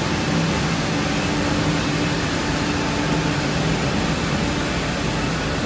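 Steady machinery hum of a supercritical CO2 extraction plant running, an even noise with a low steady drone under it.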